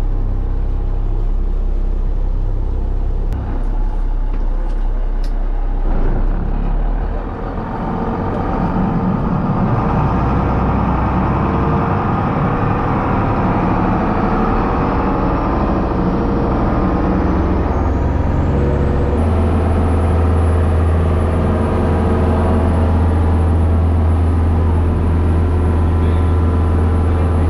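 Charter fishing boat's engine running steadily under way, with water and wind noise. The engine note shifts about seven seconds in and again near nineteen seconds, then settles into a stronger, steady hum.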